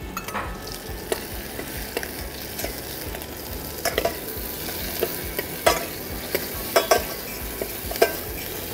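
Vegetables sizzling as they brown in butter in a small saucepan. A spoon stirs them, clinking against the pan now and then.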